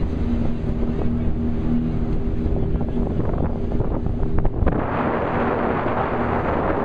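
Motorboat engine running steadily under way, with wind buffeting the microphone; about two-thirds of the way through the wind and rushing noise grows markedly louder.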